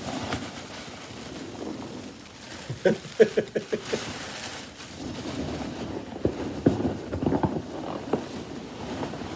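Hands rummaging through packaging in a cardboard box: rustling, with a quick run of about half a dozen clicks about three seconds in and more scattered knocks later.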